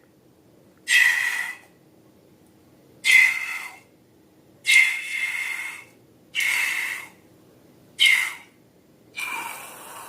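Air escaping from balloon necks in a series of short squealing hisses, each with a steady high tone, about six times at intervals of roughly a second and a half.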